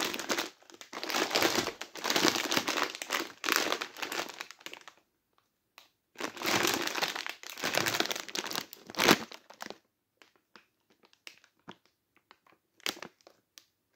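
Plastic crisp packet crinkling as it is handled and turned over. Dense crackling comes in two spells over the first nine seconds or so, then only scattered light crackles.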